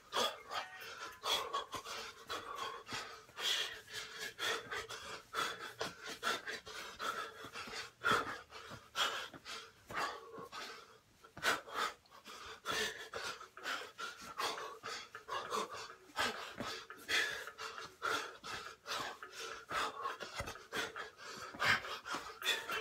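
A man's sharp, rapid breathing while shadowboxing: a quick hiss of breath out with each punch and head movement, many short breaths in quick, irregular succession.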